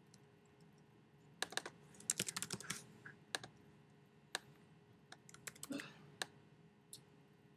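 Typing on a computer keyboard: a quick run of keystrokes from about one and a half to three seconds in, then scattered single clicks.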